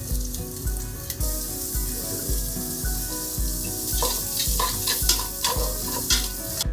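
Diced onion sizzling as it hits the hot fat and browned lamb residue in a stainless steel sauté pan. From about four seconds in, metal tongs scrape and tap against the pan as they stir. Background music with a steady beat plays underneath.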